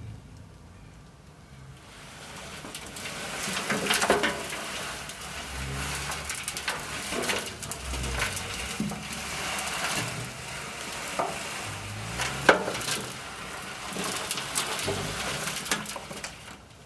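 Compost tumbler being turned, the wet compost inside sliding and tumbling round the drum with a gritty swishing that swells and falls like waves on a beach, starting about two seconds in. The squeal the drum has made before does not come.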